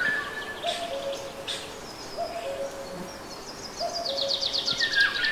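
Forest birdsong: a two-note hooting call, higher note then lower, repeats about every second and a half, while other birds chirp. A fast high trill comes in near the end.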